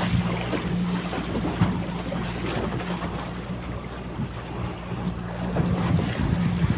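A boat's motor running steadily under way, with wind buffeting the microphone and water rushing past the hull.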